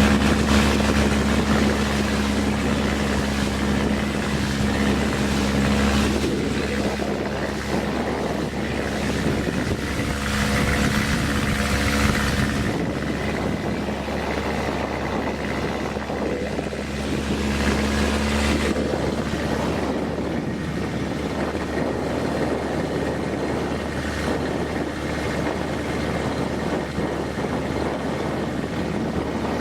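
Motorboat engine running steadily under way, with rushing wind and water noise around it.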